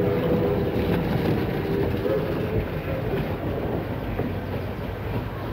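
Steam train with wooden passenger coaches running along the track, a steady rumble and rattle of wheels and cars.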